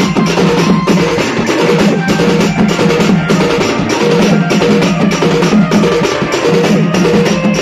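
Sambalpuri dulduli baja band playing a fast, dense rhythm on several slung drums struck with sticks. A steady low tone runs underneath, with short repeated pitched notes above it.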